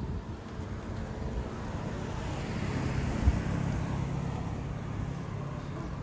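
Street traffic: a car passing, its noise swelling about two seconds in and easing off, over a low steady engine hum. A soft thump about three seconds in.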